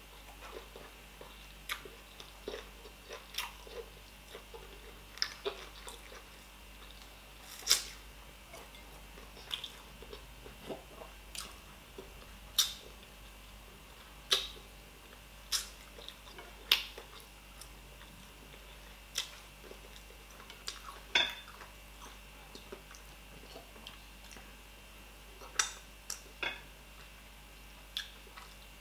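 Close-up mouth sounds of eating fish with the fingers: chewing, with sharp lip smacks and sucking clicks every second or two.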